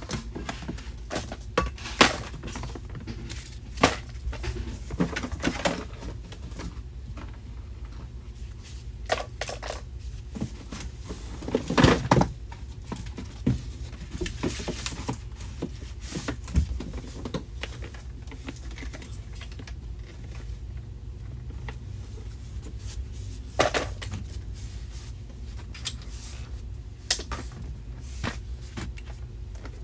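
Scattered knocks, clicks and light rattles of small objects being picked up and set down during tidying, over a steady low hum, with a few sharper knocks standing out.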